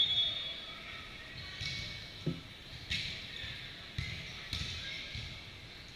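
Volleyball rally: several sharp hand-on-ball hits, the clearest about three seconds and four and a half seconds in.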